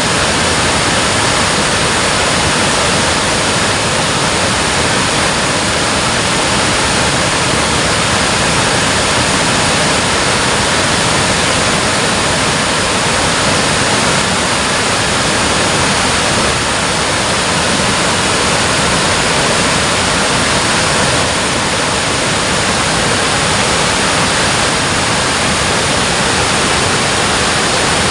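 Water pouring through a dam, a loud, steady, unbroken rush of falling water.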